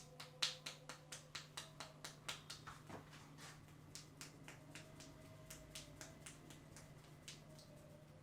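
A quick run of sharp clicks, about four to five a second, from the barber's hands working the head in an Indian head massage. The clicks are loudest near the start and grow fainter after about three seconds.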